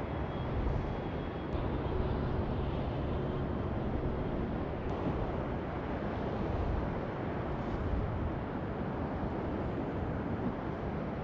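Steady wind rumble on the microphone of a kayak-mounted camera, with sea water moving against the kayak's hull.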